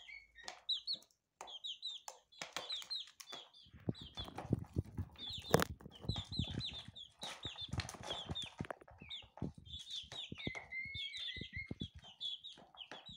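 Young chicks peeping over and over, short high calls that drop in pitch, with a longer, lower call near the end. From about four seconds in they peck food from a plastic dish, making a run of quick taps and knocks, the sharpest about a third of the way in.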